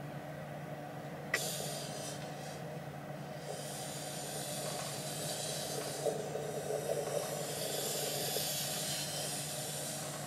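Ouija board planchette sliding across the board, a scraping hiss that starts with a click about a second in and comes and goes as it moves, over a steady low hum.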